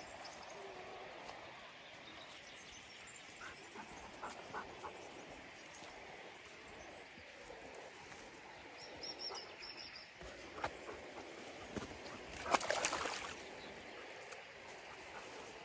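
Footsteps and rustling of people and dogs walking a dirt path through scrub, with scattered short clicks and faint bird chirps. A louder brief rustle comes about three-quarters of the way through.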